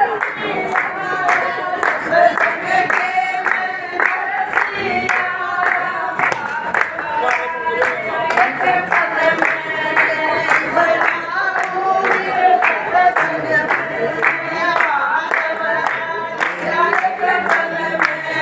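A group of people singing a kirtan, a Hindu devotional chant, together, with handclaps keeping a steady rhythm.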